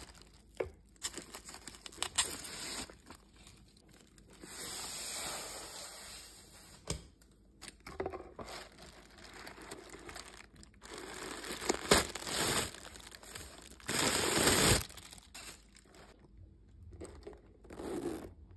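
Tissue paper wrapping crinkling and rustling as a new leather crossbody bag is unwrapped and handled, with a few sharp clicks. Two longer, louder rustling stretches come about a third of the way in and again near the end.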